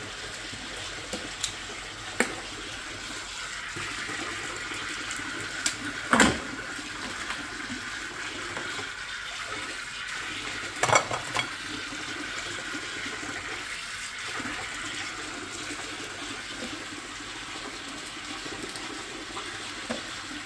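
Steady running and splashing water as cooked mud crabs are washed and cleaned. A few sharp clacks of crab shell being handled and broken come through it, the loudest about 6 and 11 seconds in.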